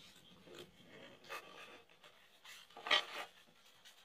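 2019 Topps Allen & Ginter baseball cards sliding and rubbing against each other as they are shuffled through by hand. There are a few short papery swishes, the loudest just before three seconds in.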